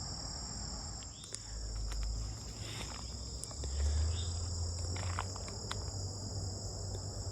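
Steady chorus of crickets, two unbroken high tones. A low rumble swells twice, loudest about four seconds in, with a few faint clicks scattered through.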